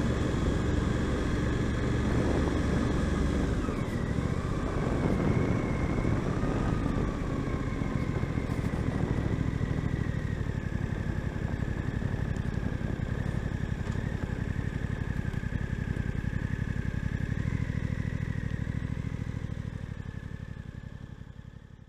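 Suzuki GSX-8S's 776cc parallel-twin engine with its 270° crank, running steadily as the bike is ridden on the road. The sound fades out over the last few seconds.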